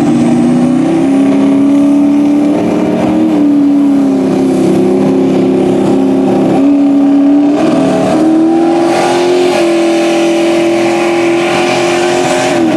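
Turbocharged 5.3-litre LS V8 of a rat rod mud truck running hard under load through a mud pit, its pitch stepping up several times as the revs climb. In the second half, mud and water thrown off the tyres add a spraying hiss.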